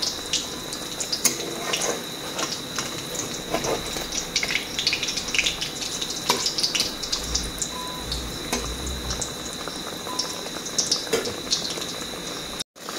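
Masoor-dal kababs shallow-frying in hot oil in a kadai on low heat: a steady sizzle with scattered crackles and pops. The sound cuts out for a moment near the end.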